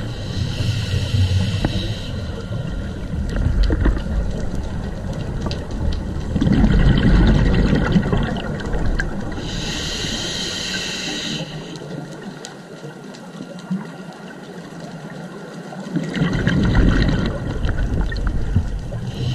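A scuba diver breathing through a regulator underwater. Each inhale is a short hiss from the regulator, coming near the start, about ten seconds in and again at the end. Twice, some seconds after an inhale, comes a rumbling gush of exhaled bubbles.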